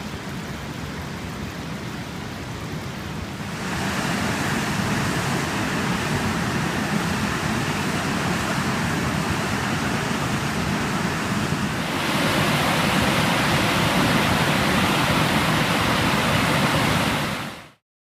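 Waterfall's rushing water, a steady full roar that steps louder twice, about a third of the way in and again about two-thirds in, then cuts off abruptly near the end.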